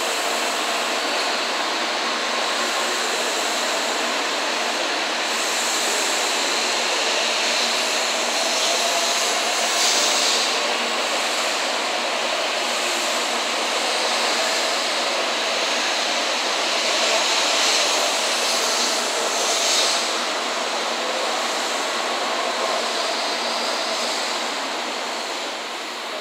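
A 16-car N700 series Shinkansen pulling out past the platform: a steady rushing of wheels and air with faint steady tones in it, swelling slightly about ten seconds in and again near twenty.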